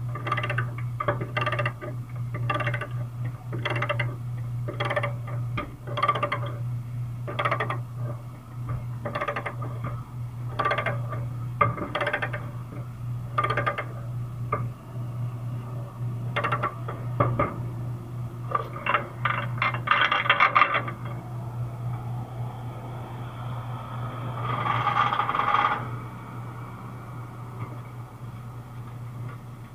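Ratchet chain binder being cranked to tighten a tie-down chain over a bulldozer blade, its pawl clicking at an even pace, a bit more than once a second. About 19 seconds in comes a quicker run of clicks, and about 25 seconds in a longer rasping metal noise, all over a steady low hum.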